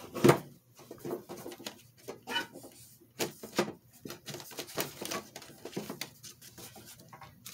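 A colored-pencil tin being handled as its hinged lid is opened: a string of irregular small clicks, knocks and rattles, the loudest just at the start.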